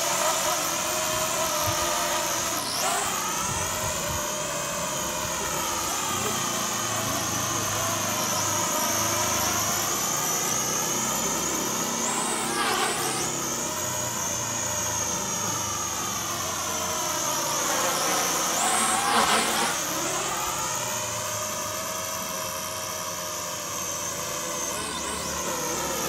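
Small toy quadcopter drone flying overhead: the high whine of its motors and propellers rises and falls in pitch throughout, sliding sharply down and back up about three times.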